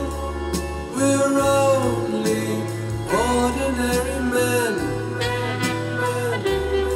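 A song with singing and a steady bass line played back over Genelec G2 bi-amped monitors and an F2 subwoofer, with notes that slide in pitch.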